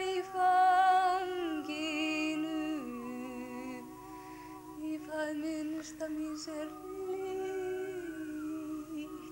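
Women's voices singing or humming wordless, long held notes that step to a new pitch every second or two, more than one voice overlapping.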